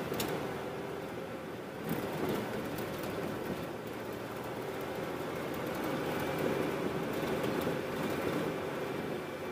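Off-road vehicle driving on a rough dirt road: a steady rumble of engine, tyres and road noise, with a few short knocks or rattles in the first couple of seconds.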